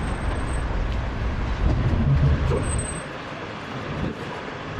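Steady low rumble of road traffic, which drops quieter about three seconds in.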